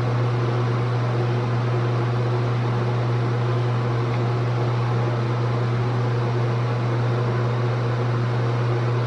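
A motorised appliance running steadily: an unchanging low electrical hum under an even rushing noise, like a fan.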